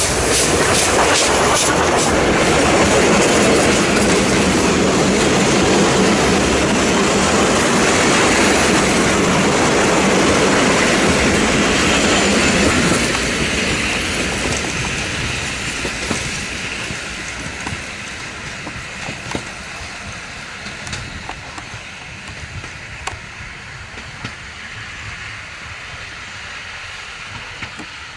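Steam train passing close by: the locomotive's exhaust beats and the rolling noise of its wheels and coaches, then the sound fades as the train moves away, leaving the wheels clicking over rail joints.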